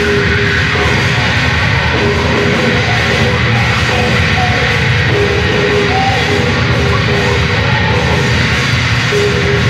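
A heavy metal band playing live through a PA, loud and steady: distorted guitars, bass and drums in a dense wall of sound.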